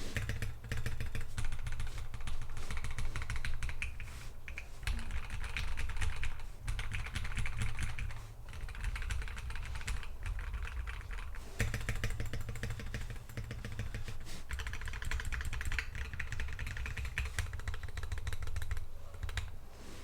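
Typing on a Drop Alt high-profile mechanical keyboard with Dogikon JWK linear switches, lubed with Krytox 205g0 and filmed, and Drop Horizon keycaps. The keystrokes come as fast, continuous runs of clicks broken by a few brief pauses.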